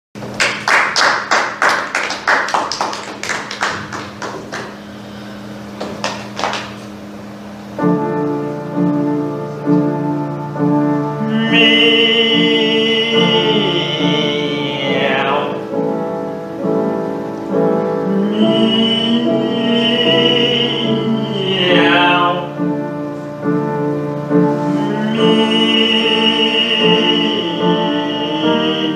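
Classical piano playing alone for the first several seconds, then a classically trained voice singing with wide vibrato over the piano, with two long sliding falls in pitch.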